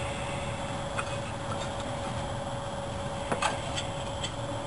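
Scattered light clicks and ticks of spark plug wires being handled and routed through their holders on a Chevrolet V8, with a cluster a little after three seconds in. A steady faint hum runs underneath.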